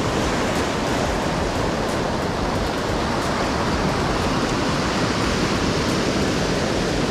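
Ocean surf washing on the shore in a steady, continuous rush.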